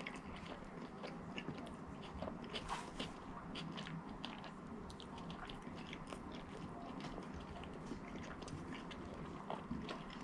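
Close-miked chewing and biting of ranch-dipped fast food, with many short, wet mouth clicks and smacks.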